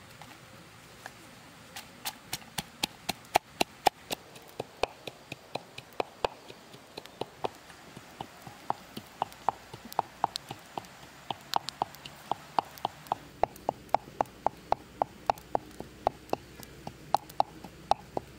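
Wooden pestle pounding red chillies in a wooden mortar: a steady run of sharp knocks, about three a second, starting about two seconds in.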